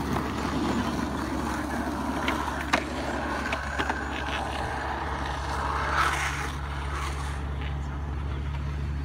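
Skateboard wheels rolling on rough asphalt, a steady gritty rumble with a few sharp clicks.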